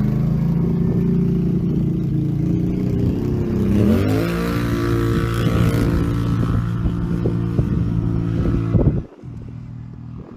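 Can-Am Outlander ATV engine running through an MBRP slip-on exhaust, steady at first, then revving up about four seconds in and holding the higher revs. The sound cuts off abruptly near the end.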